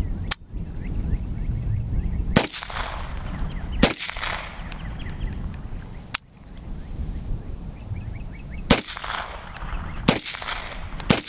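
Type 14 Nambu pistol firing 8mm Nambu rounds in slow, uneven single shots, about five in all, each a sharp crack with a short echo. A low wind rumble on the microphone fills the gaps between shots.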